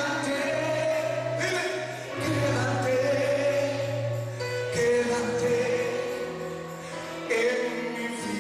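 A man singing a gospel song live into a microphone, holding long notes over band accompaniment with a steady bass line and cymbal strokes.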